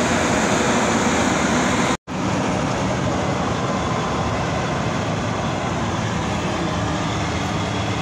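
New Holland combine harvester at work, its engine, header and threshing gear making a steady, loud mechanical din. The sound breaks off for an instant about two seconds in, then carries on a little quieter.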